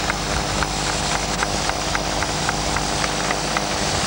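Steady aircraft engine noise with a low hum, and a light tick repeating about four times a second.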